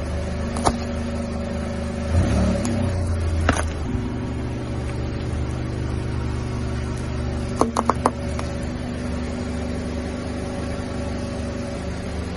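Car engine idling steadily as the tyre creeps forward over asphalt, with a couple of single sharp clicks and a quick run of three or four cracks a little past the middle: hard lollipops cracking under the tyre.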